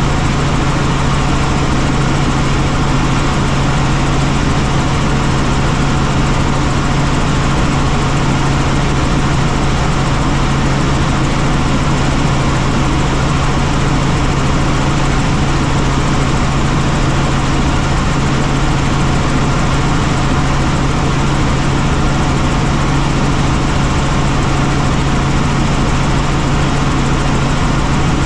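Helicopter in flight: steady rotor and engine noise with a strong low hum, unchanging throughout.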